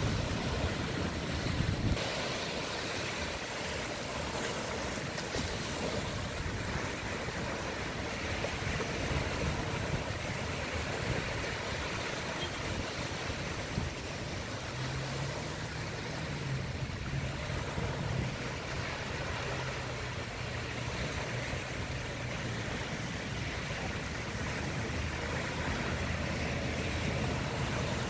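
Small waves breaking and washing up onto a sandy beach, a steady surf noise. A faint low hum joins about halfway through.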